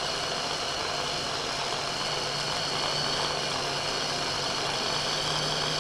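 Electric mini chopper (stick-blender motor on a chopper bowl) running at one steady speed with a constant whine, grinding peanuts and sesame seeds with honey toward a sticky paste.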